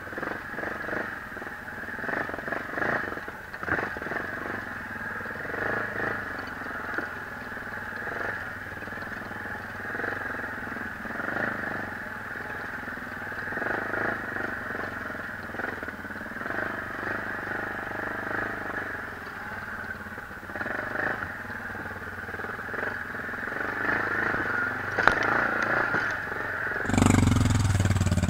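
ATV engine running at low speed as the quad crawls over rocks and through mud, with small rises and falls in engine speed. Near the end the engine sound suddenly becomes louder and fuller.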